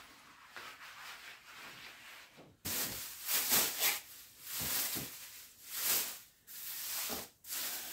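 A cover is rustled and smoothed over a massage patient's shoulders. Quiet rubbing comes first, then, from about two and a half seconds in, loud hissing rustles in several uneven bursts.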